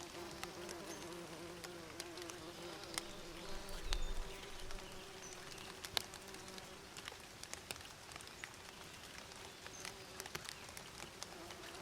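Bees buzzing steadily in a wavering hum, with a few brief, faint bird chirps and scattered small clicks; a low thump about four seconds in.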